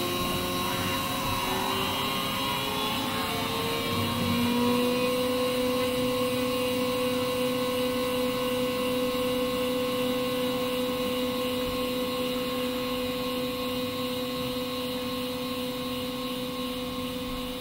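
Motorized German equatorial telescope mount slewing: a motor whine that climbs in pitch over the first few seconds, holds a steady pitch, then winds down near the end as the mount stops.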